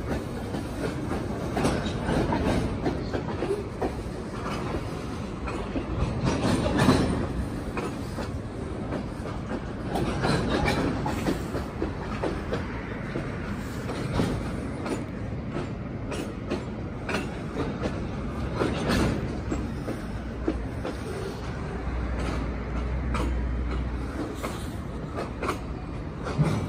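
A freight train of tank cars rolling past, a steady rumble of wheels on rail broken by irregular sharp knocks.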